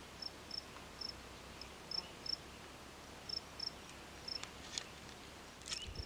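A cricket chirping faintly: short, high chirps at one pitch, about a dozen, spaced unevenly. A few small clicks come near the end.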